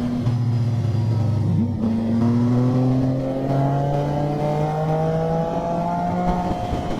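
Motorcycle engine under way, its note climbing steadily as it accelerates, with a short break in the note a little under two seconds in and a change of pitch near the end.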